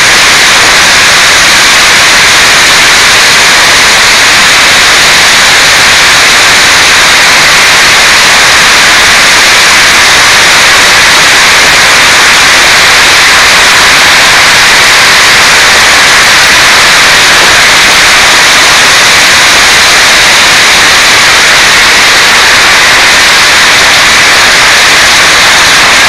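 Hailstorm: heavy rain and hail pelting down in strong wind, a steady, very loud hiss with no let-up.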